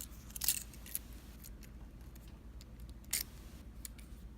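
Small, sharp metallic clicks and taps of a handmade challenge lock being handled, a handful of separate ones, the loudest about three seconds in.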